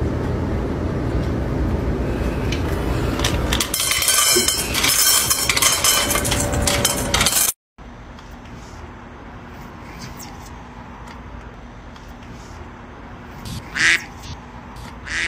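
A loud, even rushing noise with crackles for the first half, then a short hiss from a kitten near the end.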